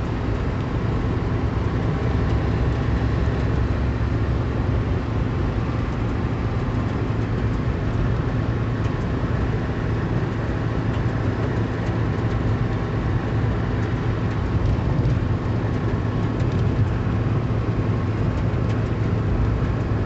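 Pickup truck cruising at highway speed, heard from inside the cab: a steady low drone of engine and tyre noise.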